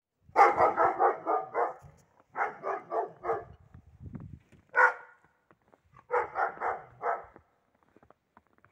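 A dog barking as a watchdog in quick runs of four to six sharp barks, with a single bark between the runs.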